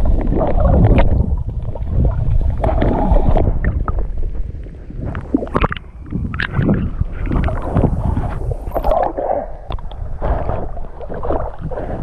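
Water sloshing and gurgling against an action camera moving underwater, a low irregular rumble with scattered sharp splashes and clicks. It breaks the waterline about halfway through, where the splashes come thickest.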